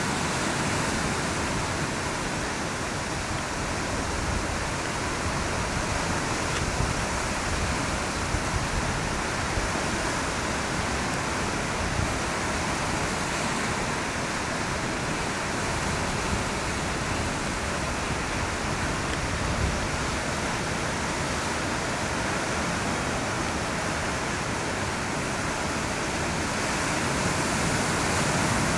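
Ocean surf breaking and washing over shoreline rocks, a steady rushing noise, with an uneven low rumble of wind on the microphone.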